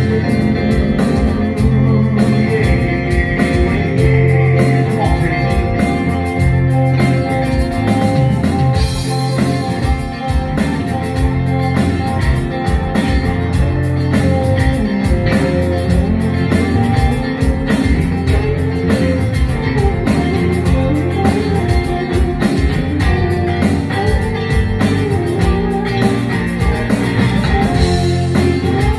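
Live rock band playing: electric guitar over bass guitar and a drum kit keeping a steady beat.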